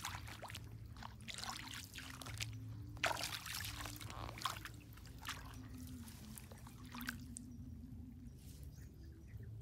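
Footsteps sloshing and splashing through ankle-deep water in irregular steps, loudest about three seconds in, then quieter water sounds from hands working in the shallows near the end.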